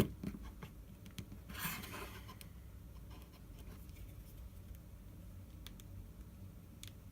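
Quiet handling noises from a smartphone being worked on at a bench: a click at the start, a brief scrape about two seconds in, then a few faint ticks.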